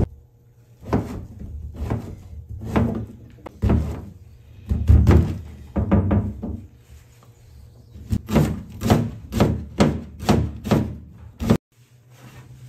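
Chef's knife chopping through mushrooms and a green stalk onto a plastic cutting board: spaced-out knocks at first, then a quicker, even run of about two chops a second that stops suddenly near the end.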